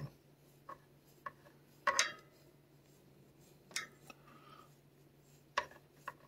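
A few short scrapes and clicks of a plastic back scratcher on a long metal handle, rubbing against a cat's fur and knocking on the surface beneath it. The loudest comes about two seconds in.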